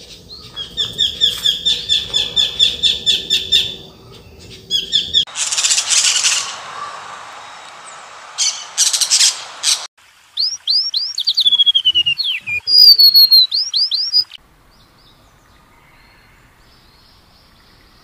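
Birdsong from several different birds in turn: a fast run of repeated chirps, then harsh squawking calls, then a string of clear whistles that slur downward. It goes faint about three-quarters of the way through.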